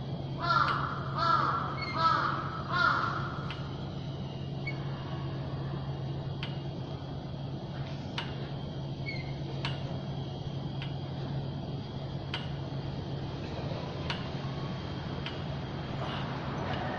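A crow cawing four times in quick succession, starting about half a second in, over a steady low hum.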